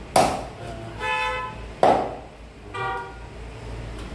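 Two hard chops of a large knife through raw chicken onto a wooden chopping block, about a second and a half apart. Between and after them come two short steady toots of a vehicle horn.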